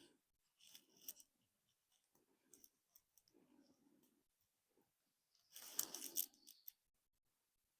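Near silence with a few faint clicks, and a short burst of scraping and clattering about six seconds in: small hand tools being handled while marking out the end of a log.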